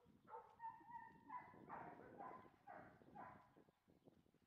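A dog yelping faintly, a run of short pitched cries about two a second that stops near the end.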